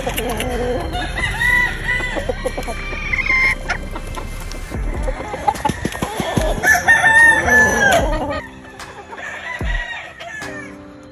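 Kelso gamefowl roosters crowing, with hens clucking. One crow comes about a second in, and a longer, louder crow runs from about six and a half to eight seconds.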